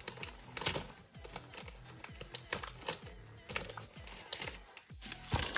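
Scattered light clicks and rattles of small plastic LEGO pieces being handled and sorted, over faint background music.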